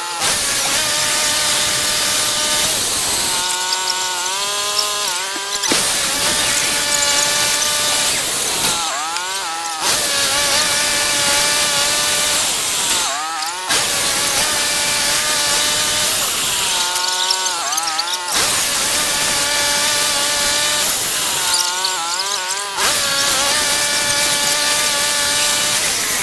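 Portable bandsaw sawmill running under load: its engine and blade whine steadily under the hiss of the band blade cutting through a log. Every few seconds the cutting hiss drops away briefly and the engine's pitch wavers, then the sound jumps back abruptly.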